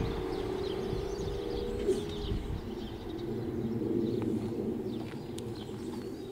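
Automatic half-barrier level crossing booms rising after a train has passed: a steady hum from the barrier mechanism that stops about two seconds in. Small birds chirp over a low rumble that slowly fades.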